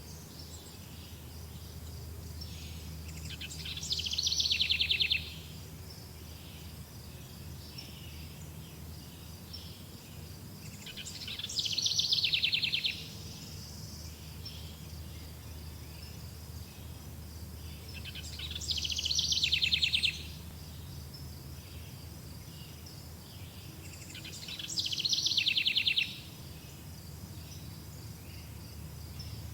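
Forest birds singing. One songbird repeats a song four times, about every seven seconds; each song builds louder over about two seconds and stops suddenly. Softer chirping of other birds continues between the songs.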